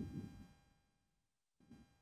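Mostly near silence: a faint, irregular low rumble of wind buffeting the microphone fades out within the first half second, and a short gust comes back near the end.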